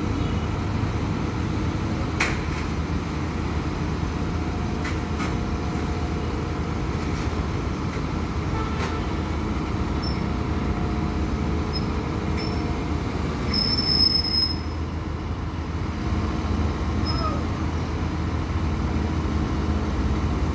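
Heavy diesel engines of SANY hydraulic excavators running steadily under load as they lift and push a wooden cabin. There are a few short knocks, and brief high-pitched squeals about two-thirds of the way through.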